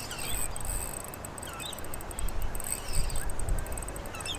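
Wind noise on the microphone, with an uneven low rumble that is strongest in the second half, and a few short bird chirps.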